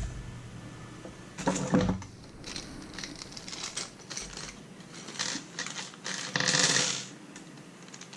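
Small hard plastic-and-metal clicks and rattles of an enclosure and loose screws being handled, with a cluster of clacks about two seconds in. A clear plastic bag of small screws crinkles briefly late on.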